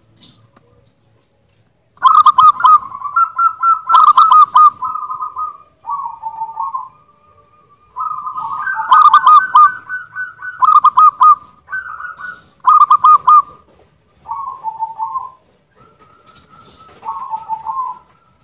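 Zebra dove (perkutut) cooing loudly: repeated phrases of quick staccato, rattling coo notes at one pitch, each phrase a second or two long with short pauses between, some phrases dropping lower.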